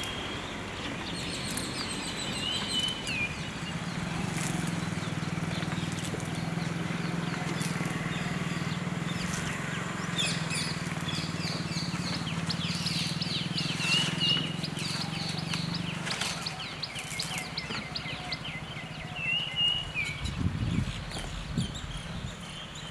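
Outdoor ambience of many small birds chirping and whistling. A steady low hum runs under them for about the first two-thirds, and a few dull knocks come near the end.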